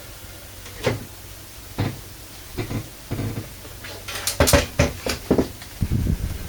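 Creaky carpeted OSB subfloor of a manufactured home creaking and popping under footsteps, a series of irregular creaks and knocks that comes thickest about four to five seconds in.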